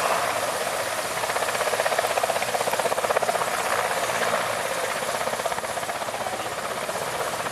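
Mil Mi-17 helicopters hovering close by: a fast, steady chop of the main rotor blades over the whine of the turboshaft engines, loudest about two to three seconds in.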